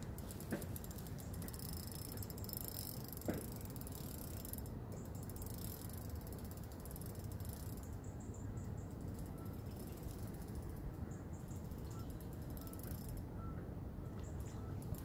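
Fixed-spool fishing reel ticking faintly in short spells, with a sharp click about half a second in and another about three seconds in.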